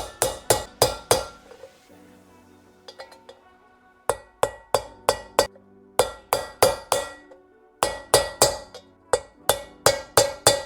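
Hammer driving a needle bearing into its bore: sharp metallic strikes with a short ringing tone, about three a second in runs, with a pause of nearly three seconds after the first second.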